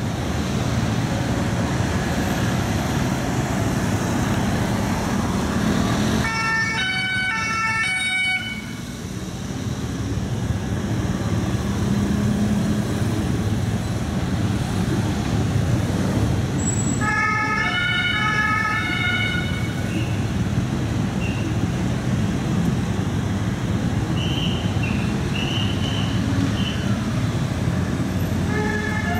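Street traffic noise, broken twice by a short burst of a French two-tone (deux-tons) siren, alternating high and low notes, from the escorting Gendarmerie BMW R1200 RT-P police motorcycles: about six seconds in and about seventeen seconds in, each lasting two to three seconds, with another burst starting near the end.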